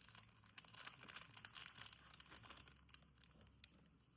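Faint crinkling and rustling of trading card packaging being handled as the next pack is readied, with a single sharper tick near the end.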